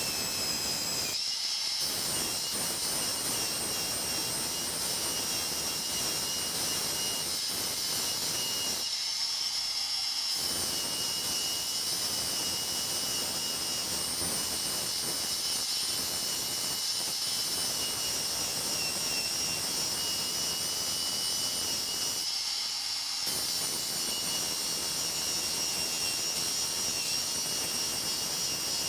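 Ryobi angle grinder running steadily with its disc ground across the flat face of a finned aluminium heat sink, a high motor whine over the rasp of the disc on metal. The grinding noise thins briefly a few times as the contact eases, while the motor keeps running.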